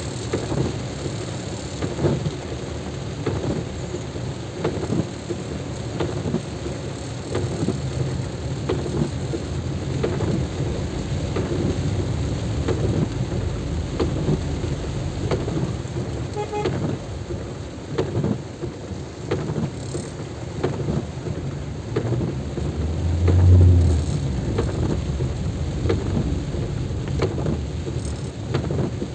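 Heavy rain, with a steady low rumble and many small sharp taps of drops; a louder low rumble swells briefly about three quarters of the way through.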